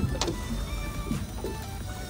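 Background music with held notes over the steady whine of an electric fishing reel's motor winding in line from deep water.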